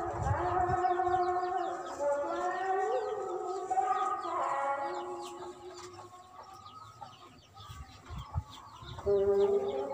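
Roosters crowing in overlapping calls, with small birds chirping. The crowing dies down about halfway through, and another crow starts near the end.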